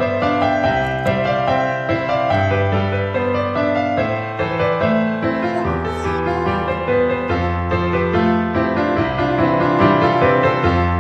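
Background music led by piano or electric piano, with sustained low bass notes.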